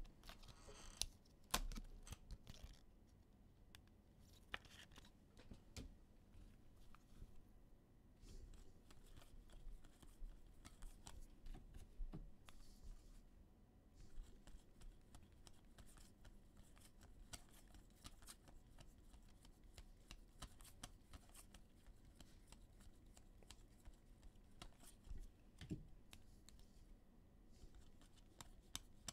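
Football trading cards being flipped through one by one from a stack in the hands: faint, quick clicks and slides of card stock against card stock, with a few sharper snaps about a second in.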